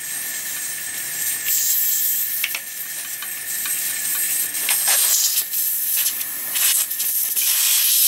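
Air hissing steadily out of a fat bike tire's Schrader valve as the valve core is unscrewed, the tire deflating, with a few faint clicks of the tool at the valve.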